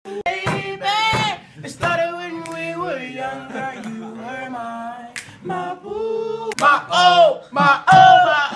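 A solo voice singing a slow song, holding long notes with vibrato, over a low steady accompaniment.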